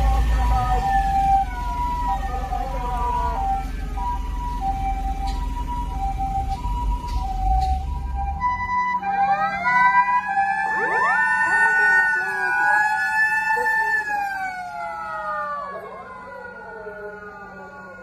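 Japanese ambulance siren sounding its two-tone high-low call, each tone about half a second, over low traffic rumble. About eight seconds in it cuts to several wailing sirens, typical of Japanese fire engines, that rise, hold and slowly fall, fading near the end.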